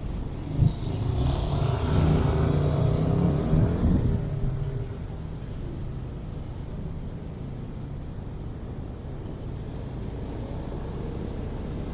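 Urban road traffic: a motor vehicle runs close by for the first four seconds or so, with a sharp knock just under a second in, then it fades to a steady low hum of distant traffic.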